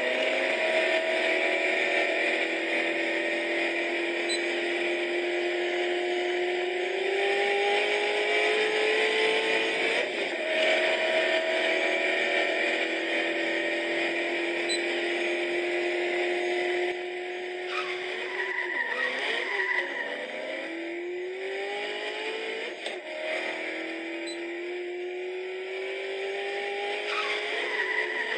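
Racing video game's car engine sound effect, revving up through the gears: the pitch climbs slowly, drops at each shift and climbs again. The shifts come closer together in the second half.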